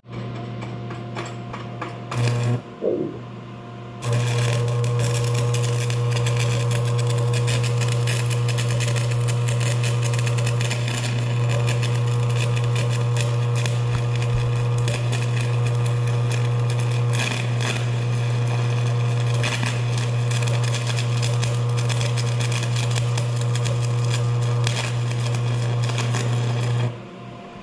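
Stick welding arc from a Vulcan Commander 225 transformer welder running 7018 rod: a brief arc strike about two seconds in, then the arc catches about four seconds in and crackles steadily for over twenty seconds, over the welder's steady transformer hum. The arc cuts off sharply near the end as the stringer bead is finished.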